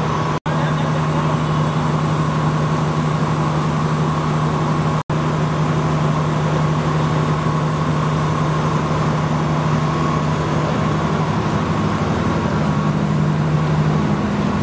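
Heavy construction machinery running steadily, a loud, even drone with a low hum and a fainter higher tone. The sound drops out for an instant twice, once near the start and once about five seconds in.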